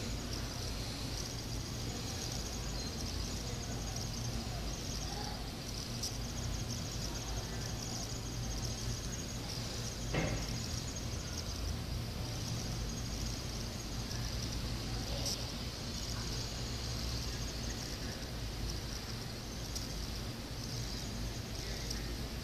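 Steady high-pitched insect chorus, a continuous chirring, over a low steady hum, with a single short click about ten seconds in.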